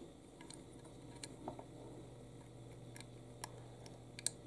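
A few faint, small clicks and taps as a multi-pin wire connector is handled and pushed into its socket on a security camera's circuit board, the sharpest click near the end.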